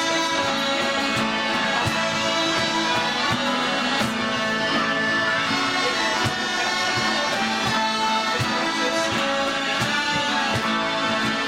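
A group of bellows-blown Scottish smallpipes playing a tune together over their steady drones, with a regular low beat underneath.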